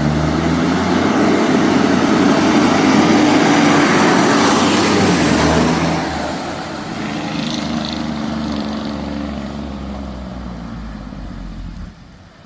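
Fire apparatus driving past: diesel engine and tyre noise swell to a peak about four to five seconds in, then fade away. It drops off sharply near the end.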